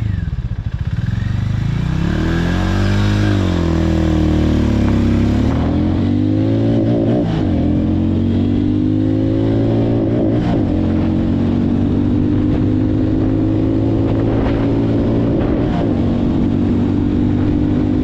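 Hero Mavrick 440's 440 cc single-cylinder engine under hard acceleration. The revs climb and drop back at several quick upshifts in the first seven seconds or so, then rise slowly and steadily in a higher gear.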